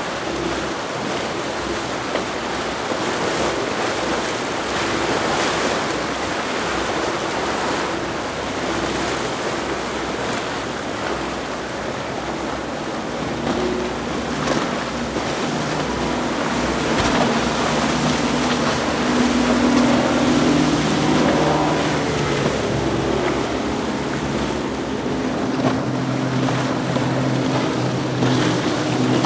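Center-console boats with outboard engines running fast past through chop: rushing water and spray from the hull, with the outboard drone growing stronger in the second half.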